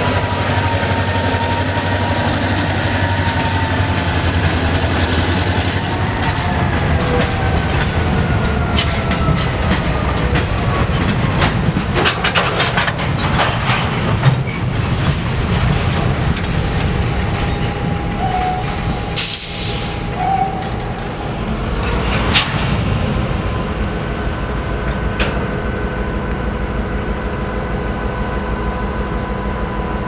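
EMD GP38-2 and GP40-2 diesel locomotives moving slowly past at close range, their two-stroke V16 engines running with a steady low rumble. A tone slowly falls in pitch over the first several seconds. Wheels clack over rail joints, with a few sharp knocks through the middle.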